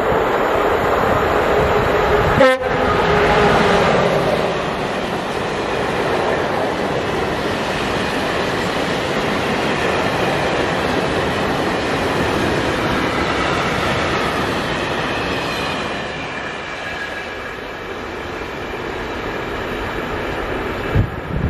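Freight train of open wagons hauled by a Škoda class 44 electric locomotive passing at speed. The locomotive's horn sounds in the first few seconds, then the wheels run with a steady rumble and clatter over the rail joints, growing quieter after about sixteen seconds.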